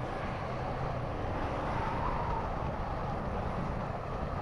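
Steady motorcycle noise from a Yamaha MT-15 on the move: an even rush of engine, wind and road sound with no sudden changes.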